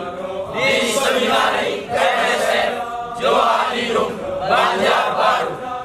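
Male voices singing a hymn in Indonesian, line by line with short breaks between phrases.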